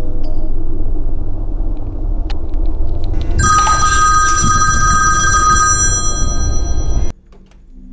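Horror-film sound design: a dense low rumbling drone, joined about three and a half seconds in by a piercing high ringing tone, several pitches held steady together, until all of it cuts off suddenly near the end.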